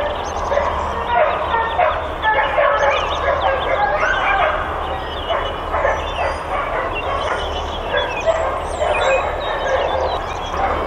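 Many boarding-kennel dogs barking and yipping over one another without a break, a continuous chorus of overlapping barks. This is the incessant kennel barking being complained about.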